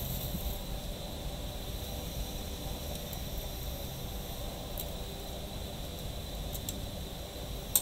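Steady low hum of workshop room noise with a faint high-pitched whine, and a few light clicks as a smartphone is handled, the sharpest one near the end.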